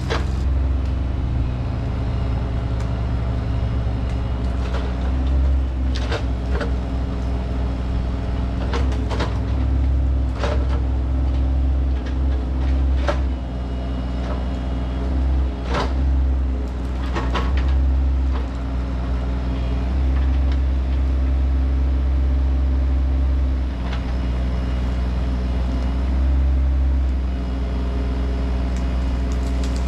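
Mini excavator engine running steadily, its pitch shifting up and down as the load changes while it digs out a tree's root ball, with several sharp clanks from the bucket and arm.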